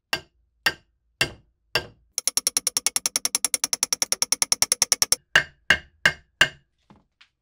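A hammer striking a steel wedge to set it into the wooden handle in the eye of a Swedish axe head. There are four sharp blows about half a second apart, then a rapid, even run of taps for about three seconds, then four more blows and two faint taps near the end.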